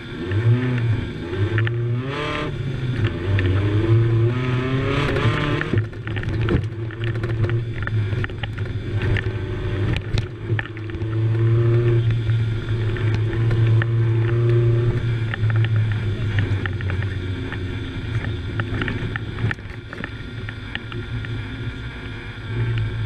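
Suzuki Samurai's engine heard from inside the cabin, revving up and down as it is driven hard on a rally stage, with frequent knocks and rattles over the rough ground.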